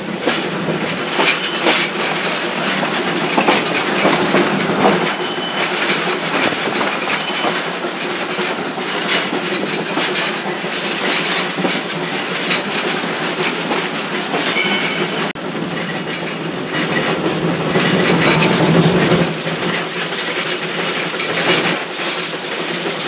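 Ride noise inside an open wooden passenger car of a narrow-gauge train: steady clickety-clack of the wheels over rail joints and rattling of the car, with a brief high wheel squeal about two thirds through. It grows louder about three quarters through.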